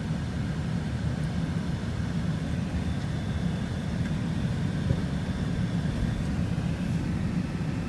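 Steady low rumble of a car, with a faint thin high whine in the middle.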